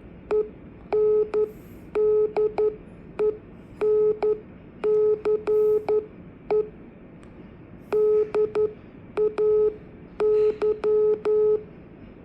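Morse code (CW) sent as a keyed beeping tone: groups of short dots and longer dashes at one steady pitch, with a small click where each element starts and stops.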